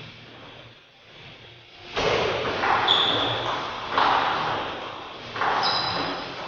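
Table tennis rally: the ball cracks off the paddles and table, each hit ringing on in the hard-floored hall. The first two seconds are quiet, then come sharp hits about two, four and five and a half seconds in, with brief high squeaks from the players' shoes on the tile floor.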